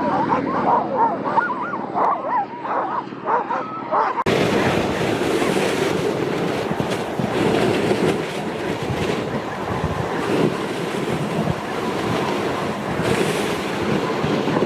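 Sled huskies whining and yipping in high, wavering cries, the noise they make when the sled stops because they are eager to pull. About four seconds in, this cuts abruptly to a steady rushing noise like wind on the microphone.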